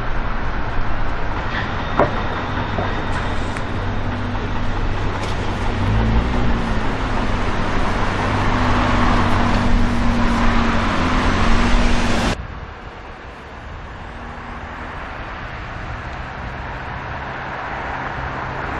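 Nissan GT-R police car driving in city traffic among other cars: a steady rush of road traffic noise with a low engine note that rises and falls in the middle. The level drops suddenly about twelve seconds in.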